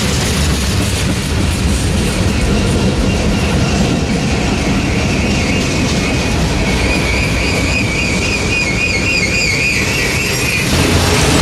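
Freight train of tank cars rolling past: a steady rumble and clatter of steel wheels on the rails. A wavering, high-pitched wheel squeal rises from about three seconds in and stops shortly before the end.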